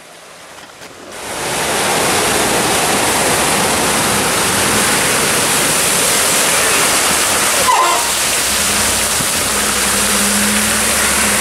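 Loud, steady rushing of fast floodwater churning around a Ford F-150 pickup as it wades out of the flood, water pouring off its wheels. About three-quarters of the way through, the truck's engine hum comes in as it drives past close by.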